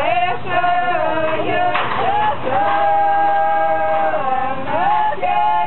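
Singing: a slow melody with long held notes that slide up and down between pitches.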